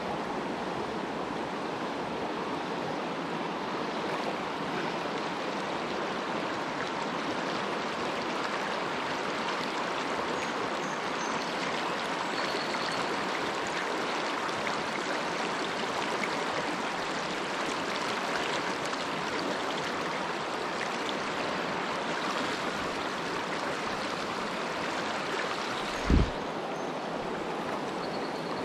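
Fast river current running over riffles and rocks, a steady rushing hiss of water. About 26 seconds in, a single short dull thump stands out as the loudest moment.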